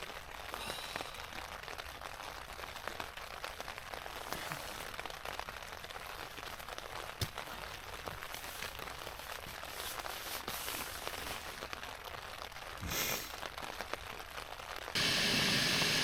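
Rain pattering steadily on a tent's fly sheet, a soft hiss with scattered small drop ticks. Near the end a louder steady hiss comes in suddenly.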